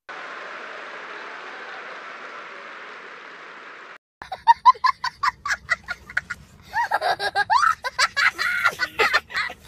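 A large audience applauding steadily for about four seconds, cut off abruptly. Then a young boy laughing hard in quick, high-pitched bursts that rise into shrieking, gasping laughter.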